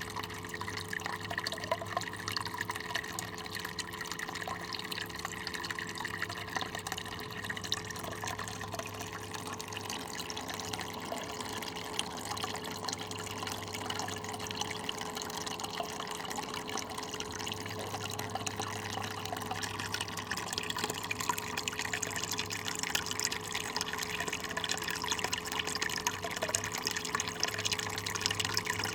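Water running steadily through a mini sluice, splashing and trickling as concentrates are washed down it, with a steady low hum underneath.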